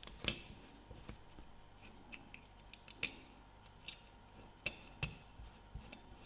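Light, sharp metallic clicks and taps of small watchmaker's tools against a divers watch case as its bezel is worked off, each with a brief high ring. They come at irregular intervals, the strongest about a third of a second in and again near three seconds in.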